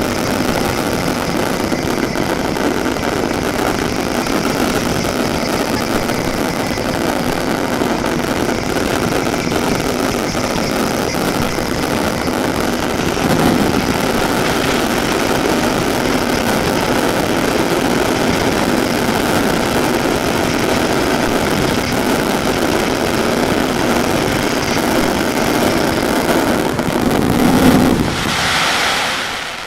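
Mascletà firecrackers going off in a dense, unbroken barrage that merges into one loud, continuous din, the closing terremoto of the show. It swells near the end and then dies away.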